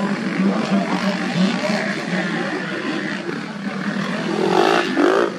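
Several motocross dirt bikes racing on a grass track, their engines running together with pitches rising and falling as riders rev and shift, louder for a moment near the end.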